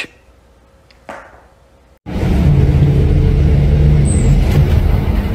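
Interior drone of a Higer bus, a steady low engine hum and road rumble, starting suddenly about two seconds in after a short quiet stretch.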